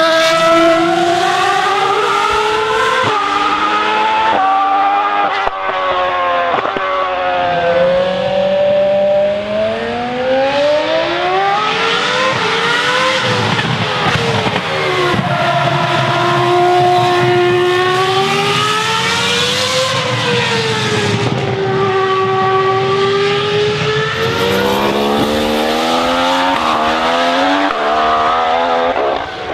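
Formula 1 car engines screaming at high revs as the cars run by. Early on the pitch climbs and drops sharply with each quick upshift. Through the middle it sweeps up and down as a car passes, and near the end it climbs in short steps again.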